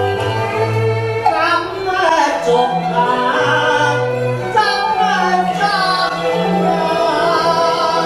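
A singer's voice through a microphone, with sliding, ornamented phrases from about a second and a half in, over instrumental accompaniment with a steady bass line.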